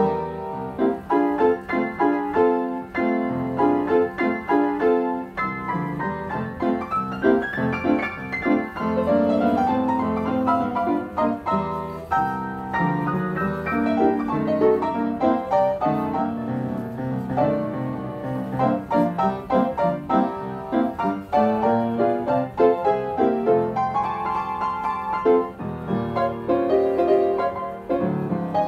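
Upright player piano playing a paper music roll: a continuous stream of piano notes, chords and runs played by the roll, with no one at the keys.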